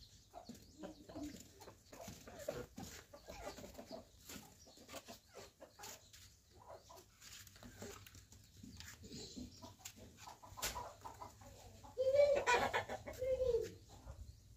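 Chickens clucking softly in a farmyard, with scattered small sounds and a louder pitched cry about twelve seconds in.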